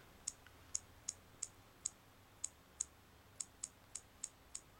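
Key-press clicks of the TouchPal on-screen keyboard on an HTC Magic phone, one per tap while typing: about a dozen short, high ticks at an uneven typing pace, faint.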